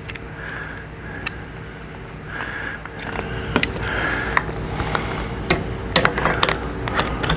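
Screwdriver and hands working on a motorcycle's plastic handlebar switch housing: scattered light clicks and knocks with a few short scrapes, more of them in the second half, over a steady background hum.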